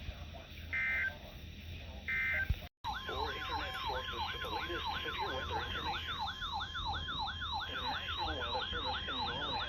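Emergency Alert System signal: three short high buzzing data bursts, the end-of-message code, then after a brief break a fast yelping siren that sweeps up and down about three times a second over a steady high alert tone.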